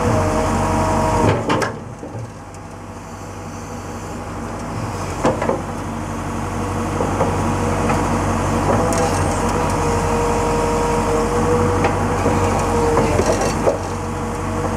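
Liebherr R911B crawler excavator working: the diesel engine runs under load with a hydraulic whine that shifts in pitch as the arm lowers and the bucket digs into a pile of earth. Knocks come about one and a half seconds in and again a few seconds later. The engine note drops about two seconds in, then builds back up.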